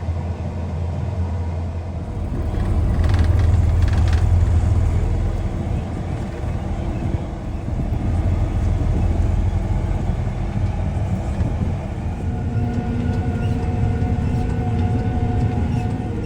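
Heavy vehicle on the road: a loud, steady deep rumble of engine and road noise, with a steady engine hum coming up about twelve seconds in.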